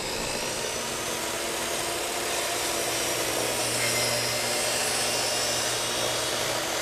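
DeWalt miter saw running steadily at full speed, its blade brought down through a molding board to cut it to length.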